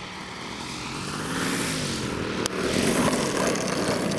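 Radio-controlled aerobatic model plane's engine and propeller running, growing louder as the plane comes in to land. A sharp click about halfway through as it touches down on the grass.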